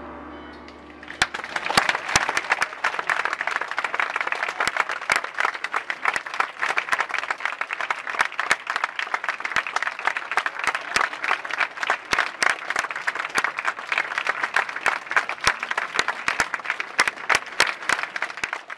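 The last chord of a brass band dies away, and about a second in an audience breaks into sustained, steady applause.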